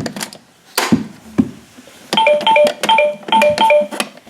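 LeapFrog Fridge Phonics school bus toy playing its electronic jingle, a bright tune of short repeated notes that starts about two seconds in. Before the tune, a couple of sharp knocks as the plastic toy is handled.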